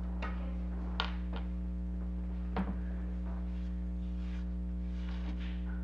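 A steady low electrical hum with a few light clicks and knocks, about a second in, near a second and a half, and near two and a half seconds.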